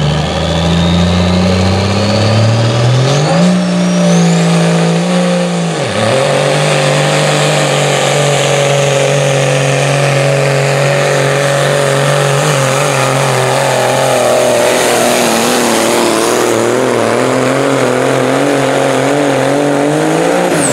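Semi truck's diesel engine pulling a weight sled under full load, its note rising steadily over the first few seconds, then holding high. About six seconds in it briefly drops and comes straight back, then runs on steadily with a slight waver.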